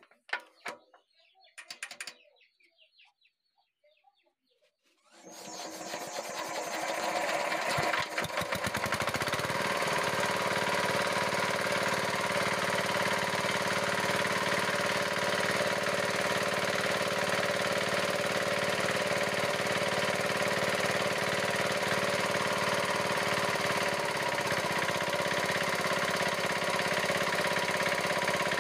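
Chinese diesel engine starting about five seconds in and settling into steady running, its speed shifting slightly around ten seconds and again near the end. Its rocker-arm valve clearance has just been reset after a loose adjusting nut caused a harsh knock, and the engine now runs with a sound the mechanic calls very good.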